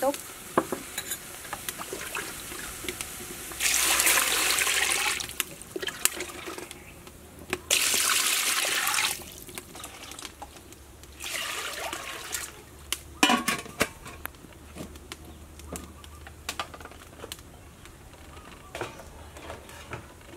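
Running water in three bursts of about a second and a half each, with scattered small clicks and knocks of kitchen work between them.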